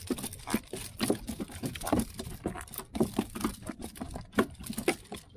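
Rapid, irregular taps and knocks as a freshly caught fish and the fishing tackle are handled aboard a plastic kayak.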